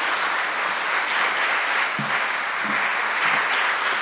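Audience applauding, a steady burst of clapping.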